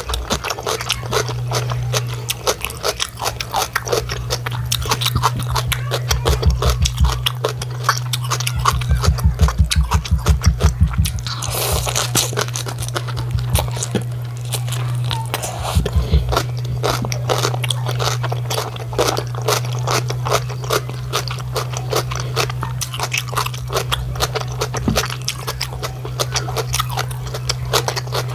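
Close-miked crunching and chewing of raw cabbage leaves wrapped around rice and stew, a dense run of crisp crunches with rhythmic low chewing thuds, over a steady low hum.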